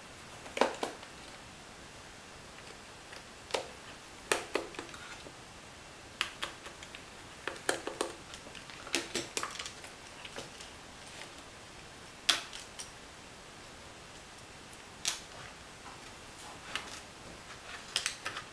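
Irregular sharp clicks and taps of small plastic parts being handled and worked loose as the holders around the LCD panel of a Garmin GPSMAP 498 GPS unit are taken off.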